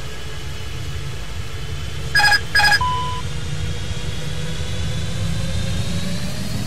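Airbus A350 cockpit in flight: a steady low rumble. About two seconds in come two short electronic beeps, then a brief steady tone. From about four seconds a faint whine slowly rises in pitch as the engines spool up to go-around (TOGA) thrust.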